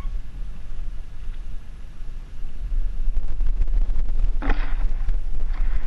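Low rumble on the action camera's microphone, louder from about three seconds in, with two short hissy bursts near the end.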